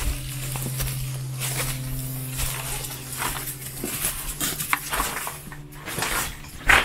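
Footsteps with scattered clinks and knocks of debris underfoot in a small room, over a steady low hum that stops about four seconds in.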